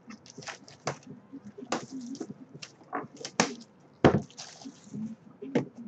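Clear plastic shrink-wrap being peeled off a trading-card box and crumpled in the hand: a run of irregular crinkles and crackles, with a thump about four seconds in.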